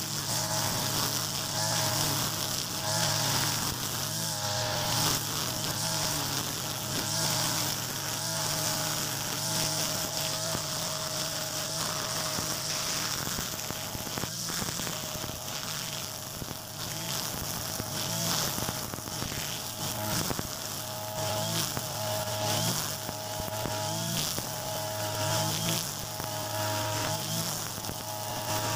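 Mitsubishi backpack brush cutter fitted with a nylon trimmer line, its small engine buzzing steadily at high speed as the spinning line cuts grass. The pitch wavers a little as the line meets the grass.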